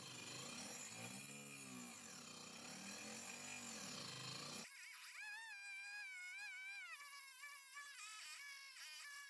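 Twin DC 775 motors spinning a 4-inch circular saw blade on a mini table saw while it cuts wood, the pitch sagging and recovering under load. About halfway through it cuts off suddenly, and music with a high, wavering melody follows.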